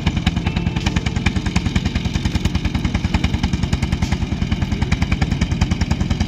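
Vintage tractor engines running at a slow, steady speed, with an even, rapid beat of exhaust pulses.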